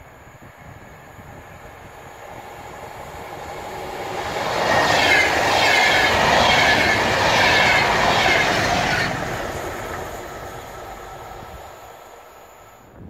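VR InterCity train of double-deck passenger coaches passing at speed: a rush of wheels on rail that swells as it approaches, is loudest for about four seconds as the coaches go by with a high wavering ring over it, then fades as the train moves away.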